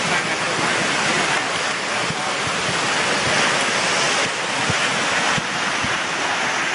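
Muddy flash-flood water rushing down a creek in a steady, loud, even wash of noise, with wind buffeting the microphone.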